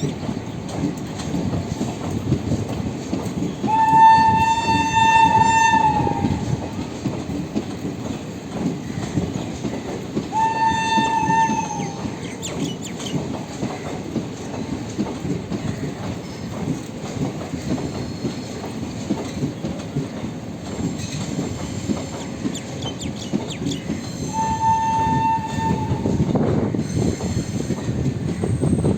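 Indian Railways express train pulling out, its locomotive horn giving three shrill blasts: a long one about four seconds in, a shorter one about ten seconds in, and another near the end, each sagging slightly in pitch as it stops. Underneath runs the steady rumble and clickety-clack of the moving coaches.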